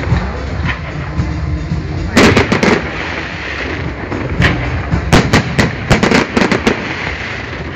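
Aerial fireworks shells bursting in sharp bangs, a cluster of three about two seconds in and a quick run of them from about five to seven seconds in, over music.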